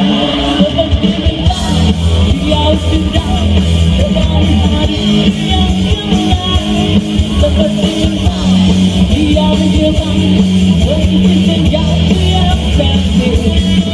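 Live rock band playing loud through the PA: electric guitars, bass guitar and a drum kit, with a singer's voice over them.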